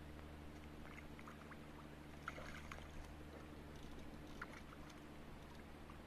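Faint riverbank ambience: a steady low drone with light water sounds at the rocky bank and a few soft ticks scattered through it.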